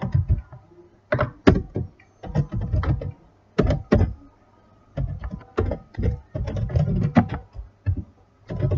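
Computer keyboard typing: irregular, fairly loud key clacks in short runs with pauses between them.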